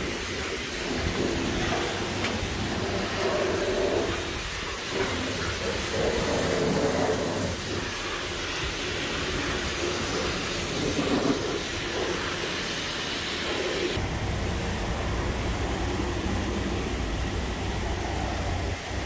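High-pressure car-wash wand spraying water and foam onto a vehicle: a loud, steady hiss. About fourteen seconds in, the hiss loses its high edge and a duller, lower noise is left.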